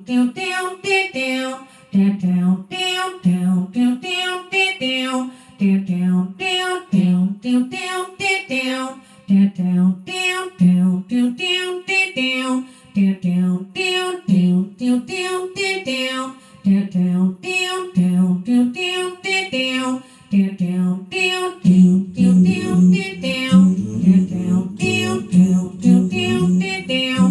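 A woman's voice improvising wordless vocal phrases into a handheld microphone, without instruments. The phrases are short and rhythmic and repeat over and over. About 22 seconds in, a denser, deeper layer joins beneath them.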